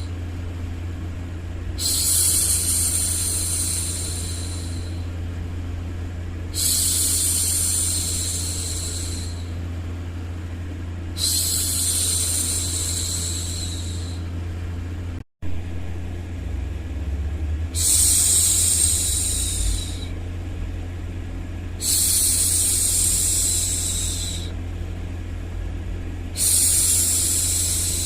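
A woman's voice shushing, a long 'shhh' about every four to five seconds, over a steady low hum of white noise, with a momentary dropout about halfway through.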